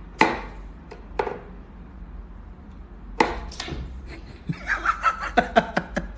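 Wooden whack-a-mole cat toy knocking sharply a few times as its wooden plungers are pushed and the cat paws at the holes, followed near the end by a fast run of short pops.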